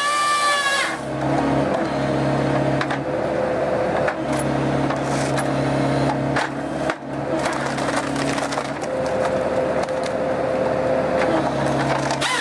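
Excavator-mounted firewood processor head splitting logs: the machine's engine and hydraulics run steadily while the wood gives many sharp cracks and splintering snaps. Background music stops about a second in and returns at the very end.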